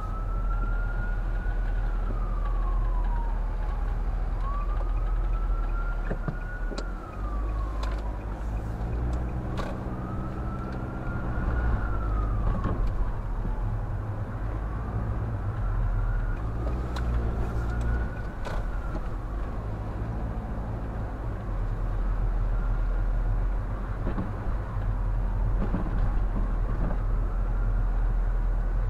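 Emergency-vehicle siren in a slow wail, rising and falling about every five seconds, over the steady low rumble of a car driving.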